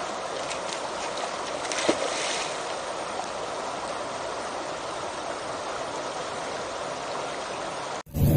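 Steady rush of flowing river water, with a brief louder noise about two seconds in; it cuts off abruptly near the end.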